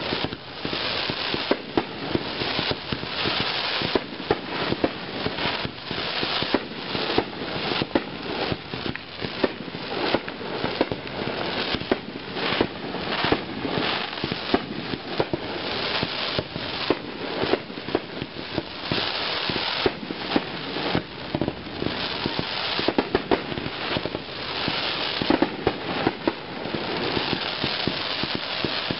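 Fireworks display going off without a break: many sharp bangs in quick succession over continuous crackling from rising comets and bursting shells.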